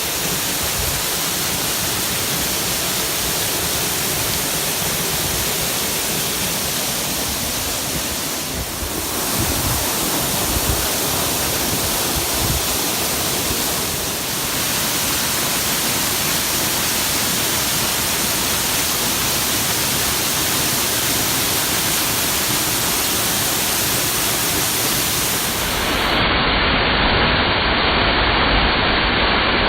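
A 20-metre waterfall with a powerful flow pouring steadily, a continuous rush of water. Near the end the sound becomes louder and more muffled.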